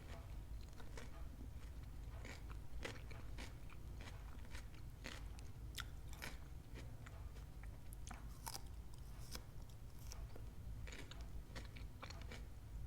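Close-miked biting and chewing of crunchy food, a run of crisp, irregular crunches with no talking.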